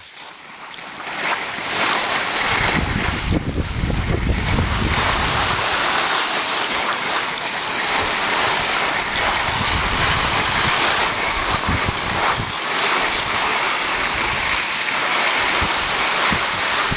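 Wind rushing and buffeting over the microphone of a camera carried by a downhill skier, with the hiss of skis sliding on snow. The rush builds over the first couple of seconds, then stays steady.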